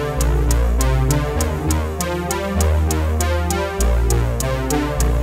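Electronic background music with a steady beat of crisp high ticks over a deep synthesizer bass line.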